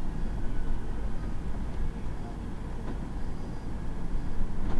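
City bus driving, heard from the driver's seat: a steady low engine and road rumble with a few faint rattles.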